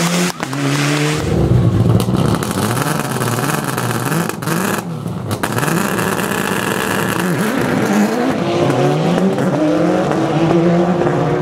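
Rally car engine revving hard, its pitch repeatedly climbing and dropping as it accelerates, lifts and shifts.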